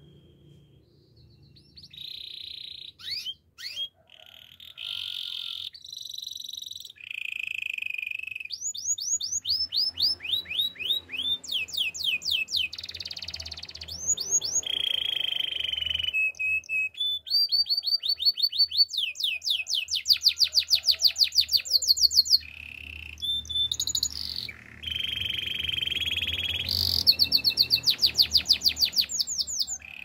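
A white domestic canary singing a long, continuous song that starts about two seconds in. It alternates runs of quick, repeated down-sweeping notes with steady buzzy rolls, high-pitched throughout.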